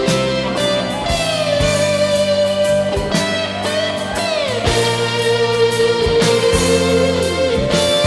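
Instrumental background music: a sustained guitar lead with sliding notes over bass notes and a steady beat.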